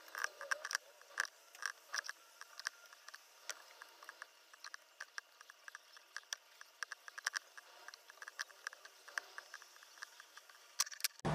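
Faint, irregular metallic clicks and ticks from a three-jaw puller and wrench working a sleeve bushing out of a motor end bell.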